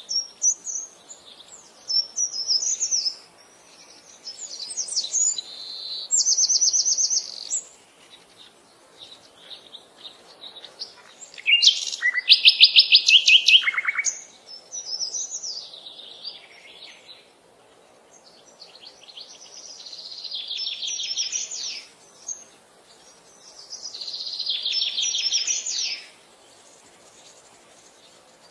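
Songbirds singing outdoors: repeated phrases of quick, high chirps and rapid trills in bursts a second or two long, with short pauses between them. The loudest trill comes about twelve seconds in.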